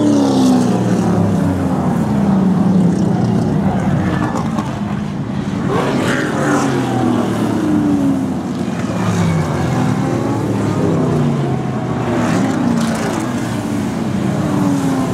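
A pack of classic V8 muscle racing cars, Ford Mustangs among them, racing past through a corner. Several engines sound at once, their pitch rising and falling as the drivers brake, change gear and accelerate, with fresh surges of revs about six seconds in and again near twelve seconds.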